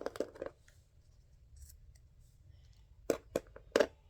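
Scissors snipping: a quick run of three or four cuts at the start, then another few cuts near the end.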